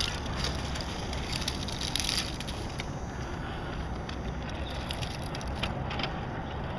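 Scale RC rock crawler truck working over rocks: tyres crunching and scraping on rock and grit, with crackling that is busiest in the first two seconds or so.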